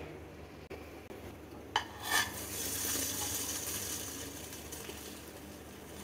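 A sharp metal clink of a knife against a nonstick pan about two seconds in, then a layered cheese sandwich sizzling as it sits in the hot pan, the sizzle slowly fading.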